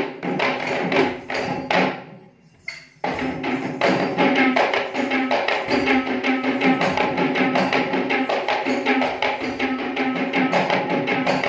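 Several Sri Lankan hand drums played together in a fast, driving rhythm of dense strokes. The drumming stops abruptly about two seconds in and comes back in a little under a second later, running on steadily.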